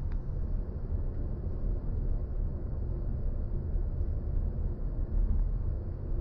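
Steady low road and tyre rumble from a BMW i4 M50 electric car driving along, with no engine note.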